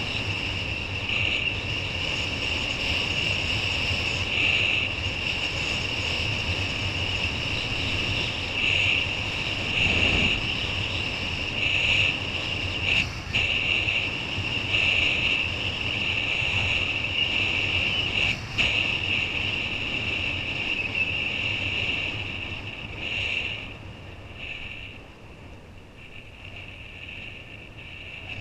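Wind rushing over a body-mounted camera and water noise while kiteboarding at speed, with a steady high whistle running through it. The rush and whistle ease off after about 23 seconds.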